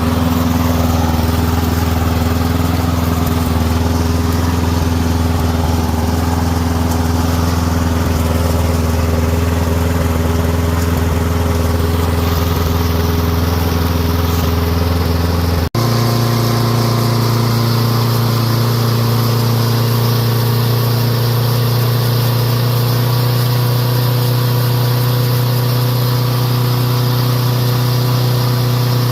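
Briggs & Stratton lawn mower engine running steadily at a low speed. After a brief break about halfway through, it runs steadily at a clearly higher pitch, as the governor tab is bent to raise the speed toward the specified 2600 RPM.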